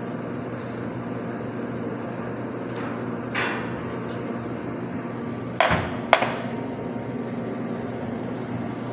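Steady machine hum from the espresso bar, with a short metallic clatter a little over three seconds in as the steel milk pitcher is set down on the machine's drip tray. About two seconds later come two sharp knocks, half a second apart.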